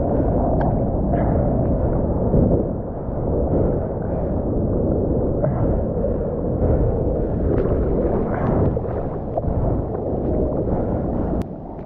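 Muffled rush of surf water and wind on a mouth-mounted GoPro in the sea, with a few brief splashes. A sharp click near the end, after which the sound drops quieter.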